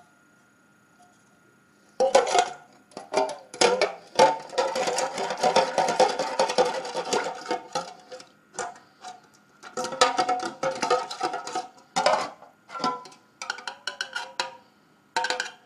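Steel gearbox shafts and gears clattering against a metal tin as they are lowered in and moved around in the cleaning liquid, the tin ringing with each knock. It starts about two seconds in and comes in bursts, with a denser stretch of clattering in the middle.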